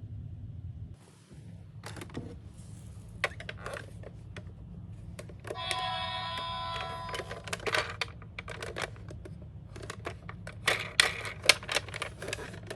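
Hard plastic toy minicars being handled, a run of sharp clicks and rattles. About six seconds in, a toy gives a brief electronic tone lasting a second or so.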